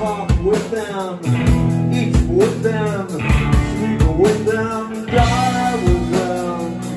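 Live rock band playing: a man singing over electric guitar and drums, with steady drum hits about twice a second.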